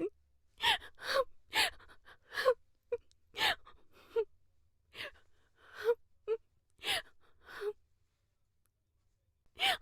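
A woman crying, drawing short, gasping sobbing breaths one after another, about a dozen over eight seconds, then a pause of nearly two seconds before another sob.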